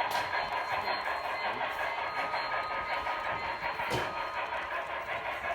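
HO-scale model train running on its track, a steady whir with fine rapid clatter. Two sharp clicks, one just after it begins and one about four seconds in.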